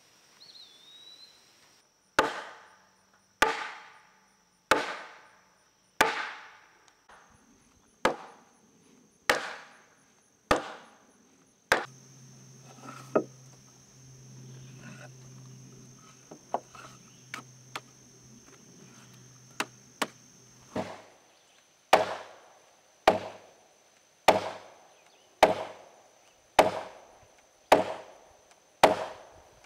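Wooden mallet striking a wooden wedge into a joint in an oak sill timber, heavy blows about one every second and a bit. The blows stop for several seconds in the middle, leaving only a few lighter taps, then resume at the same pace.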